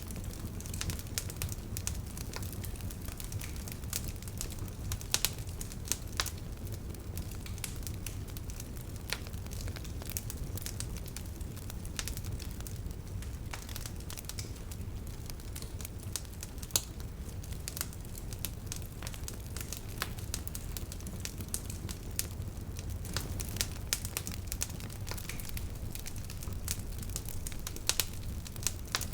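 Bonfire crackling: a steady low rumble of burning wood with frequent sharp pops and snaps, a handful of them louder, scattered irregularly throughout.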